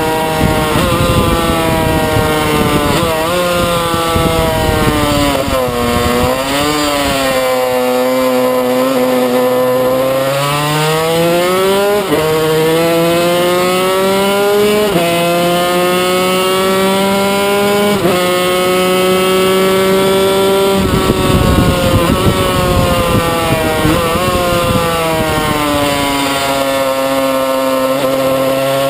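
A 1995 Yamaha TZ250's two-stroke V-twin racing engine running hard. The revs climb steadily and then drop suddenly several times as it changes gear.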